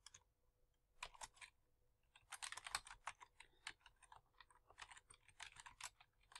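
Faint typing on a computer keyboard: a few keystrokes about a second in, then a steady run of keystrokes from about two seconds on.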